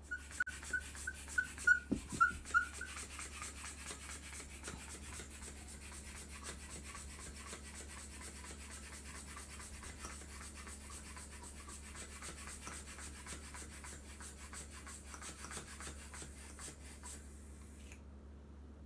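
Air pump inflating something: a steady rasping hiss with fast, even pulses that cuts off abruptly near the end. It is preceded in the first couple of seconds by a quick run of short squeaks.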